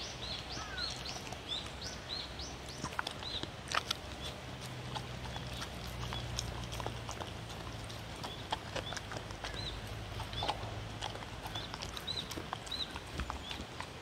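A dog crunching and chewing diced raw vegetables, in sharp irregular clicks. Small birds chirp repeatedly around it in short high calls, over a faint low hum.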